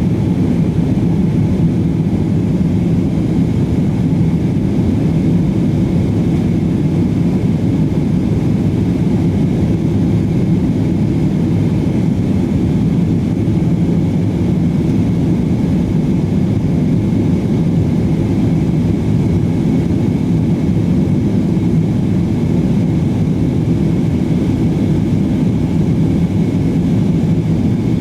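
Steady cabin noise inside an Airbus A320 airliner in flight: an even, low rumble of engines and airflow with a faint steady hum, unchanging throughout.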